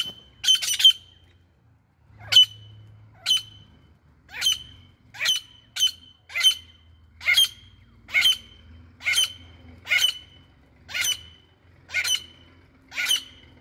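Grey francolin calling from its cage: a loud, harsh call repeated about once a second.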